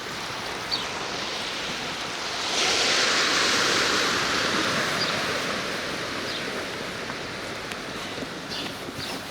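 Sea waves washing onto the shore: a steady rush of surf that swells sharply about two and a half seconds in, then slowly fades back.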